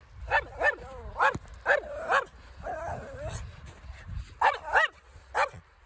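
Small Pekingese–Chihuahua mix dog play-barking to get another dog to play: about eight short, sharp yapping barks, mostly in quick pairs, with a brief wavering growl between them partway through.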